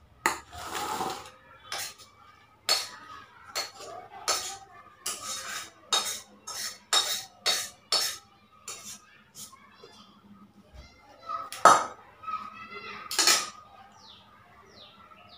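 A metal spatula scraping and knocking against a metal kadai and a stainless steel bowl as cooked cabbage is scraped out: a string of clinks and short scrapes, with the loudest knocks near the end.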